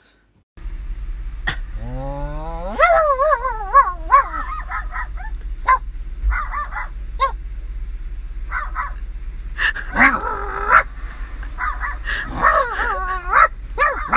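A dog howling and whining: a long howl rising in pitch about two seconds in, then wavering, broken yowls and short yips, with a louder run of them near the end.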